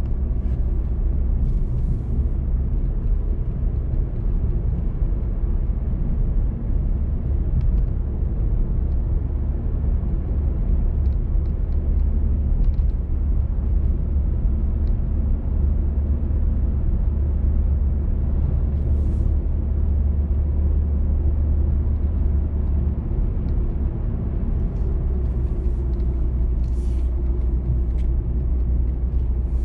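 Car driving at a steady speed: a continuous low rumble of road and engine noise, with a few faint ticks over it.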